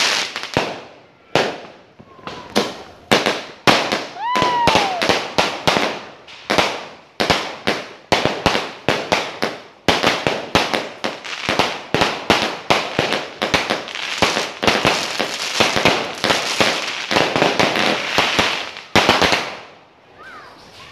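Chained Thai-made 36-shot firework cakes firing in rapid succession, a dense run of bangs and crackles several a second in pulsing clusters, until the shots stop abruptly near the end.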